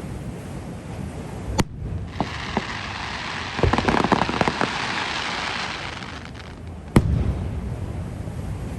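Fireworks display: a sharp shell burst, then a few seconds of hissing and crackling as the burst falls, and another sharp bang near the end.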